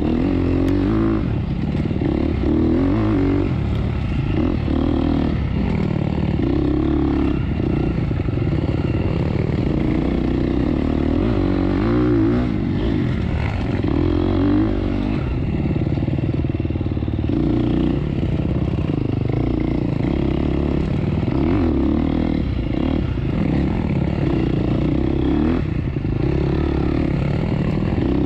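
Off-road dirt bike engine running steadily loud on a trail ride, its revs rising and falling with the throttle, with short knocks and rattles mixed in.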